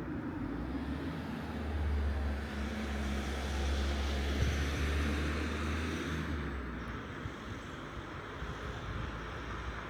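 Crane's drive running as the crane slews round in a full turn: a low hum with a hiss over it that swells about two seconds in and eases off after about six seconds.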